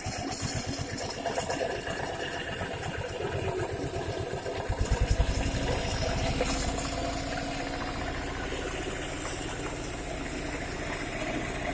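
Motorized grain mill grinding dried corn kernels into chicken feed, running steadily while the ground meal pours out of its chute. It swells into a louder, low pulsing rumble for about a second around five seconds in.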